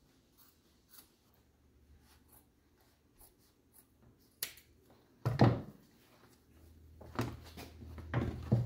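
Scissors snipping through an old welding glove, a run of small faint clicks, followed about halfway through by louder knocks and rustling as the cut glove pieces are handled on a wooden workbench.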